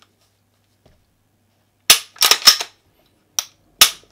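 Glock 17 Gen 4 pistol's action being worked by hand: sharp metallic clicks and snaps from the slide and trigger. There are three in quick succession about two seconds in, then a faint click and a loud snap near the end. It is being function-checked after its striker spring was swapped back to the original.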